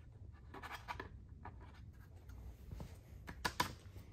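Hands rubbing and adjusting a plastic mudguard on a mountain bike's suspension fork: soft scuffing and scratching, then two sharp clicks about three and a half seconds in.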